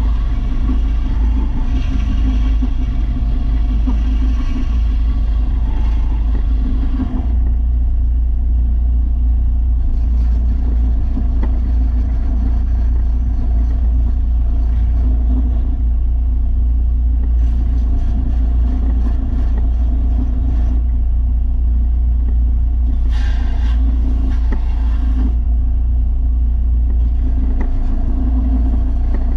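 Electric belt sander running steadily while a steel lawn mower blade is sharpened on its 300-grit belt. A grinding hiss comes and goes in spells of a few seconds as the blade is pressed to the belt and lifted off.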